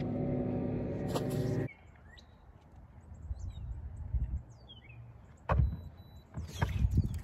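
A motor hums steadily, then cuts off abruptly about two seconds in. After that, small birds chirp, and there are two loud low thumps near the end.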